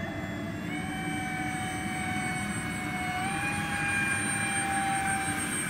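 Twin electric ducted fans of a large RC Airbus A330 model airliner in flight: a steady high whine that steps up in pitch twice, about a second in and again about three seconds in, as the fans speed up.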